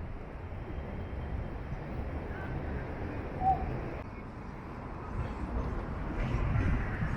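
Steady low outdoor rumble, with a short bird call about three and a half seconds in.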